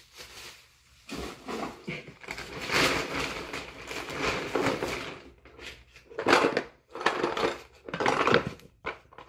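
Rustling and crinkling of a plastic poly mailer bag as items are handled in it: a long stretch of rustling, then a few short louder crackles near the end.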